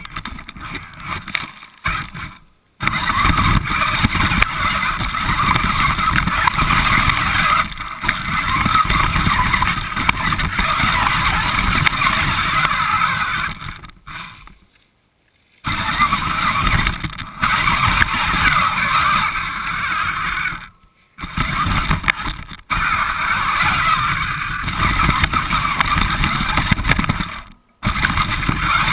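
Radio-controlled car driving with the camera riding on it: a steady, noisy rush of motor and wheels over the ground. It cuts out suddenly to near silence a few times, for about a second each.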